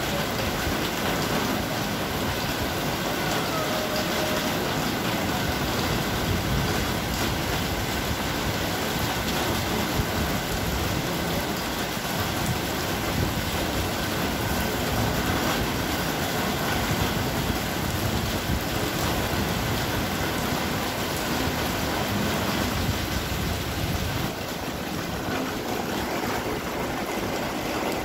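Heavy rain pouring down on a street and parked cars, a steady dense hiss that drops a little near the end.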